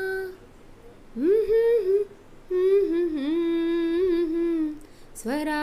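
A woman singing a slow Telugu film song in long held notes, close to humming. There are three notes, each sliding up into pitch, with short pauses between them.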